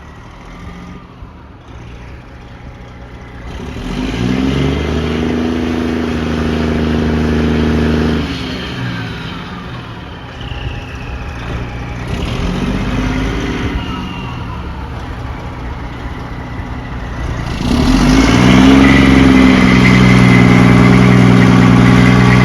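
A heavy truck engine revs up and eases off several times, with its pitch rising each time, and is loudest near the end.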